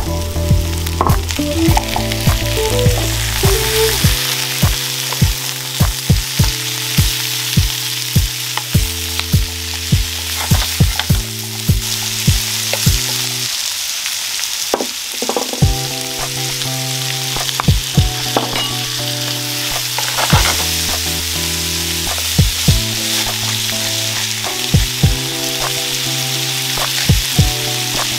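Onions, carrots and potatoes frying over medium heat in a nonstick frying pan: a steady sizzle, with short sharp knocks now and then.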